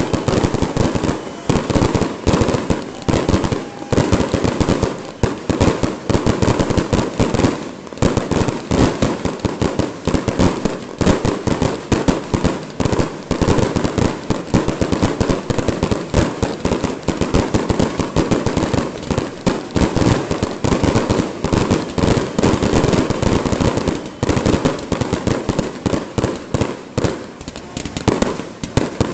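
Fireworks display: a dense, unbroken barrage of bangs and crackles, many per second.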